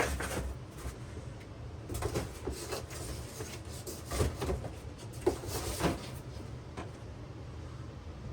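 Scattered clicks and knocks of tools and small parts being handled on a workbench, over a steady low hum.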